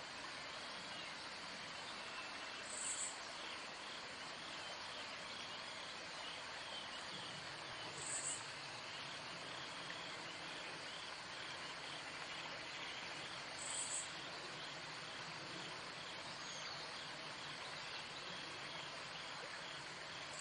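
Outdoor pond ambience of insects: a short high-pitched chirp repeating three times, about every five and a half seconds, over a steady hiss and a faint rapid ticking trill.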